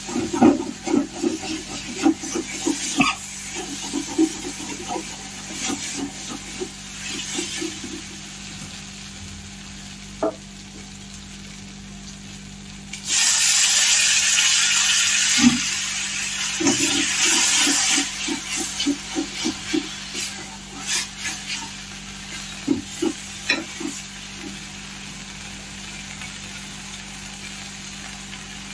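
Metal spatula scraping and stirring masala in a hot kadai, in quick repeated strokes. About 13 seconds in, a sudden loud sizzle lasts some five seconds as water and green peas go into the hot masala. Then the stirring strokes start again.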